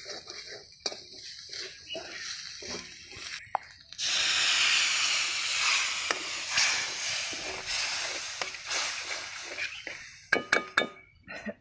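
Spatula scraping and stirring snails frying in a steel kadai, then about four seconds in water poured from a cup hits the hot pan with a sudden loud sizzling hiss that slowly dies away. A few sharp metal clinks of the spatula on the pan near the end.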